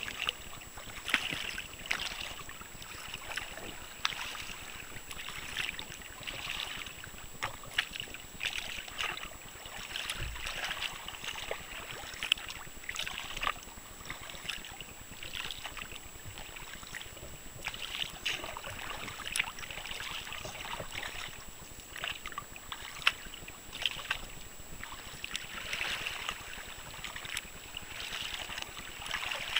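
Water splashing and lapping against a plastic kayak's hull on choppy water, in surges every second or two with occasional sharper slaps.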